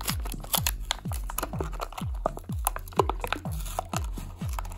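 Background music with a steady bass-drum beat, about two hits a second, each hit dropping in pitch. Over it, the crinkling and tearing of a thin plastic blister pack being peeled away from its cardboard backing card.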